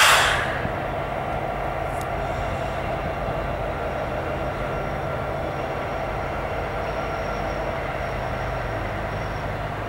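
Union Pacific diesel locomotives passing close by: a steady engine drone with rail and wheel noise. It opens with a sudden loud rushing burst that fades within about a second, and the engine's low pitch drops slightly near the end.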